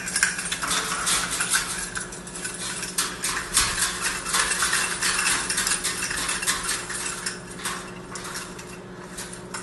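Red plastic cups on a hanging parrot toy clattering and knocking together as a white-bellied caique bats and pulls at them: a dense, irregular run of light plastic clacks and rattles, busiest in the first half.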